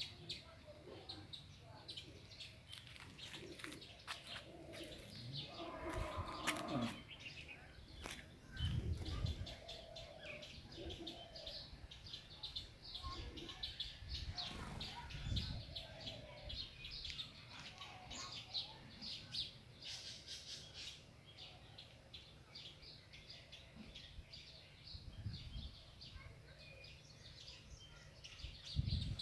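Many small birds chirping, with short quick calls repeating throughout. A few dull low bumps come through, the strongest about nine seconds in.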